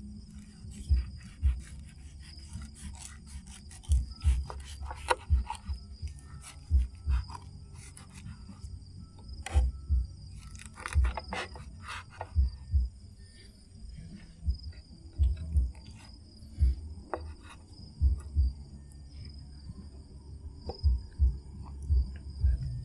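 Insects, likely crickets, keep up a steady high chirring in two pitches, over irregular loud low thumps and scattered sharp clicks and knocks, thickest about a third and halfway through.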